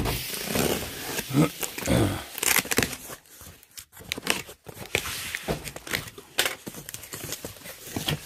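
Snap-off box cutter slicing through the packing tape along a cardboard box's seam, then the cardboard flaps being pulled apart and opened, a run of short scraping, tearing and clicking noises.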